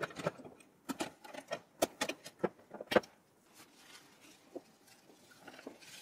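Several sharp plastic clicks and snaps in the first three seconds as the push-pin fasteners of an Intel stock CPU cooler are twisted and pulled free of the motherboard, followed by faint handling sounds.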